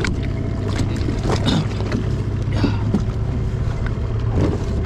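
Small boat on the sea: a steady low drone with wind on the microphone, broken by a few short knocks and splashes of water.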